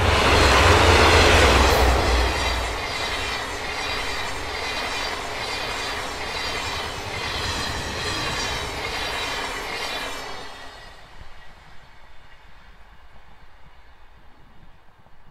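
Two JNR Class DD51 diesel-hydraulic locomotives pass close at speed, their engines' deep rumble loudest in the first two seconds. The 24-series sleeper coaches follow, rolling by with a regular clatter of wheels on the rails, and the sound fades after about ten seconds as the train recedes.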